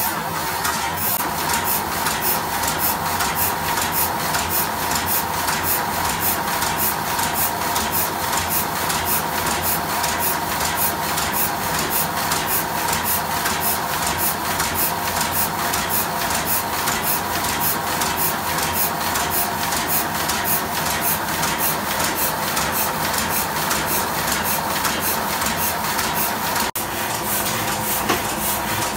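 Heidelberg GTO 46 sheet-fed offset printing press running and printing, a steady mechanical clatter with a fast even beat of about two to three strokes a second over a constant hum.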